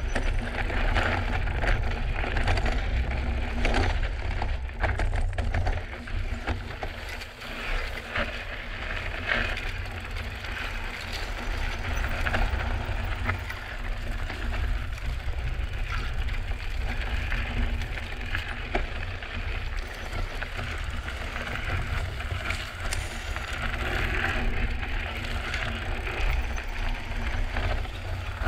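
Drop-bar mountain bike ridden over a rocky trail: tyres crunching and crackling on rock and gravel, with the bike rattling over the bumps. A steady low rumble runs underneath.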